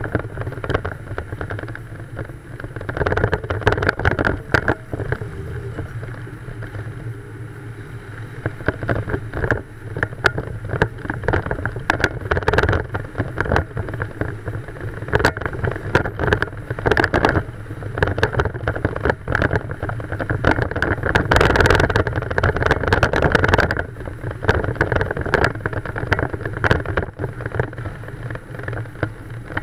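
Older car driving slowly through town streets: its engine runs steadily under road and wind noise, with frequent sharp crackles of wind buffeting the microphone on the outside of the door.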